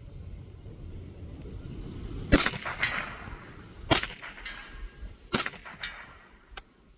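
Three shots from a Marlin 795 .22 LR semi-automatic rifle, about a second and a half apart, each followed by a fainter click or two. A low wind rumble runs underneath.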